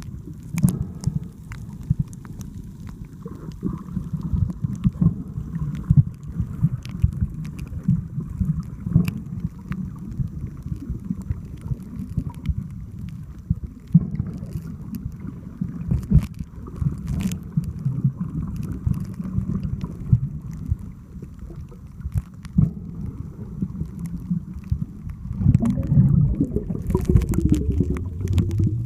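Low, muffled sea-water rumble and sloshing with many small clicks and knocks. From about 25 seconds in it grows louder, and a pitched sound glides in pitch near the end.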